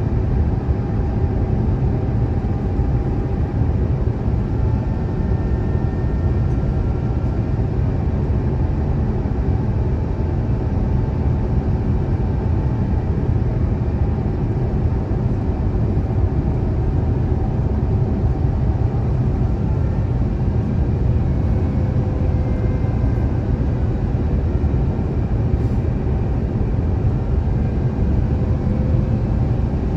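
Steady in-cabin roar of an Airbus A350-1000 in flight on approach: airflow noise and its Rolls-Royce Trent XWB engines, heavy in the low end. A few faint engine tones slowly drift in pitch as thrust changes.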